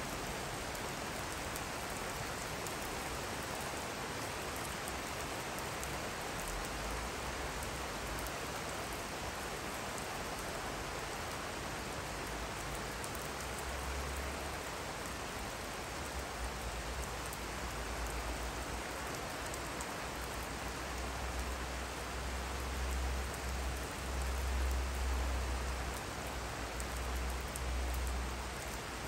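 Steady rain falling on a garden lawn and wet wooden decking, an even hiss of drops. A low rumble comes and goes under it in the second half, loudest near the end.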